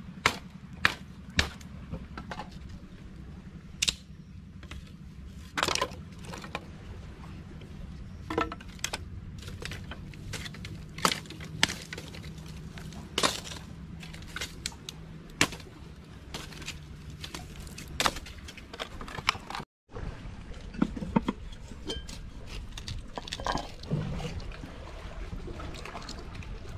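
Irregular sharp cracks of dry sticks and driftwood being snapped and chopped, over a steady low rumble. After a break about two-thirds of the way in, softer knocks and scrapes as needlefish are cleaned with a knife on a wooden board.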